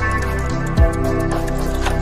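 Background music with sustained synthesizer-like chords and a deep, falling drum hit about a second in.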